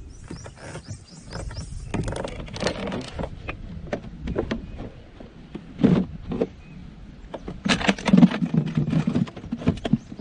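Knocks, clicks and scraping of a just-caught catfish and tackle being handled in a plastic kayak. A short low grunt comes about six seconds in and a longer one about eight seconds in.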